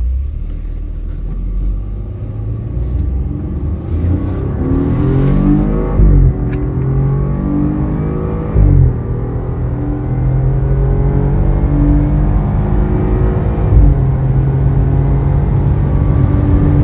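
BMW 318i engine, remapped to 190 hp, revving up under hard acceleration during a timed acceleration run. The revs drop at gear changes about 6 and 9 seconds in, then climb again more slowly.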